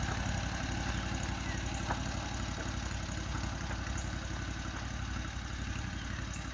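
Engine of a compact construction machine idling steadily, with a faint click about two seconds in.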